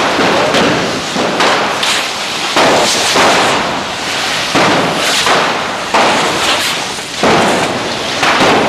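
Hand-held cordà fireworks (the traditional Bocairent canes) spraying sparks, making a dense hissing rush. Sharp bangs and pops cut through it about once a second.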